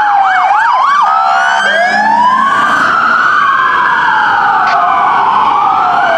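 Emergency vehicle sirens from responding fire apparatus and a police car, two sirens overlapping. A fast yelp stops about a second in, and slow rising and falling wails continue.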